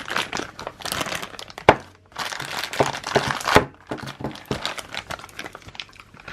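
Packaging crinkling and rustling as a boxed part is unwrapped by hand, with a few sharp snaps along the way, the loudest about a second and a half in and again near the middle.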